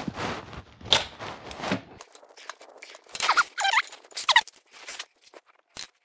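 Torque wrench and socket ratcheting in repeated strokes on the tractor's loader frame bolts. About two seconds in, this gives way to scraping, squeaks and knocks as the camera falls over.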